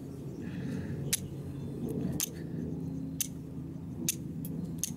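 Steel striker scraped hard down a flint, six sharp metallic clicks about a second apart, closer together near the end: each strike shears tiny pieces of steel off to throw sparks onto char cloth.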